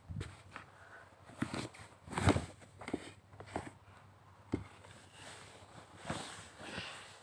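Irregular rustling and soft knocks of a phone being jostled against fabric bedding, the loudest cluster about two seconds in.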